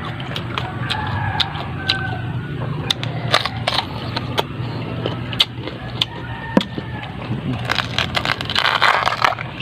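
Close-up crunchy chewing of raw coconut heart: irregular crisp crunches over a steady low hum, with a denser stretch of crunching near the end.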